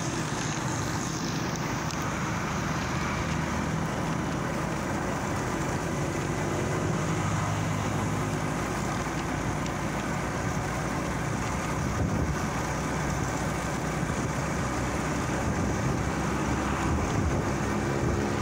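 Engine and road noise of a moving vehicle, heard from on board: a steady drone with a low engine hum that grows a little more distinct near the end.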